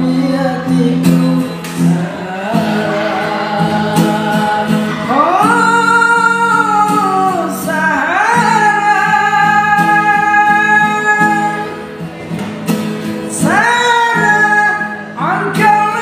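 A young man singing to his own strummed acoustic guitar. Three times his voice swoops up into a long held high note over the steady guitar chords.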